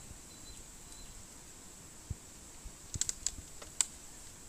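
Light clicks and taps from a man climbing over a bamboo fence with a plastic bucket: one soft thump about two seconds in, then a quick cluster of small clicks about three seconds in. A faint steady high tone sits underneath.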